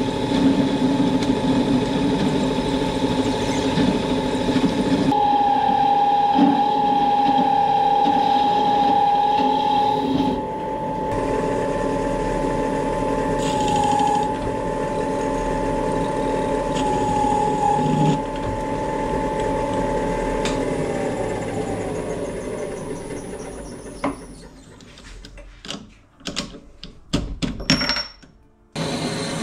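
A motor-driven machine running steadily with a whine, then winding down in pitch and stopping a little over 20 seconds in, followed by a few sharp clicks.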